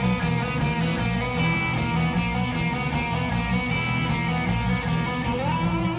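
Live rock band playing an instrumental passage: electric guitar over bass guitar and drums, with steady cymbal ticks keeping the beat. Near the end a note slides up in pitch.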